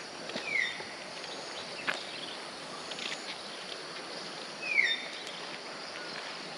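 A bird calling twice with a short falling whistle, about half a second in and again near five seconds. Under it runs a steady high hiss of forest background, with a few faint ticks.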